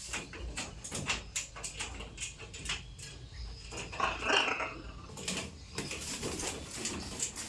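Pet parrot sounds: many small clicks and taps, with one short, rough call about four seconds in.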